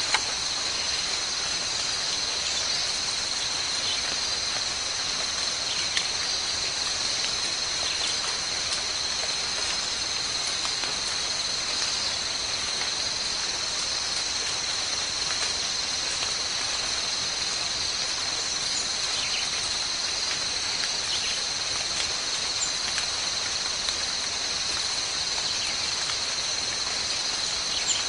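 Steady, high-pitched chorus of insects, unbroken and unchanging, with a few faint short chirps here and there.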